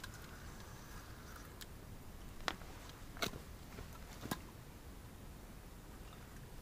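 A few faint, sharp clicks and knocks from a fishing rod and reel being handled and lifted from a tripod rest, three of them about a second apart near the middle, over a quiet background hiss.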